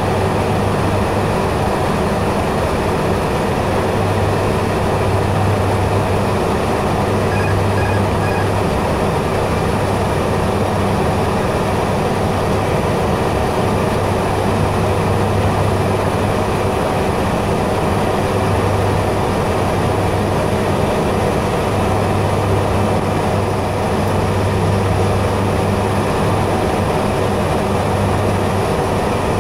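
Steady drone of a BAe ATP's twin turboprop engines and six-bladed propellers in cruise descent, heard inside the cockpit. The low hum swells and fades every few seconds. Three faint short beeps sound about seven seconds in.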